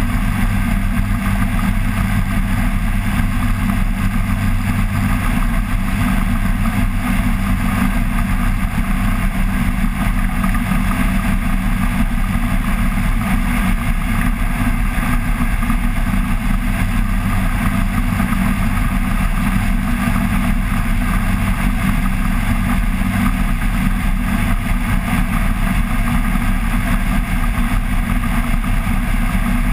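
Flex-wing microlight trike's engine and pusher propeller running at a steady, unchanging drone in flight.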